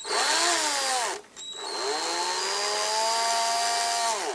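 Power drill with a 2 mm bit drilling into the plastic end of a toy X-wing's wing gun, run in two bursts: a short one of about a second, then a longer one of nearly three seconds. Each time the motor whine rises as it spins up and drops as it stops.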